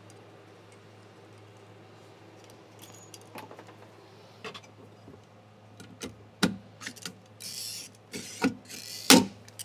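Hand pop-rivet gun setting small aluminium rivets into a sheet-steel car floor: light metallic clicks and rattles of the tool and rivets being handled, then sharper clicks as the handles are squeezed, the loudest a sharp snap about nine seconds in. A steady low hum sits underneath.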